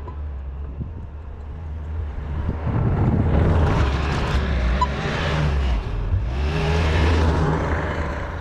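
Skid steer engine running and revving up under load, swelling louder about three seconds in and again about six and a half seconds in.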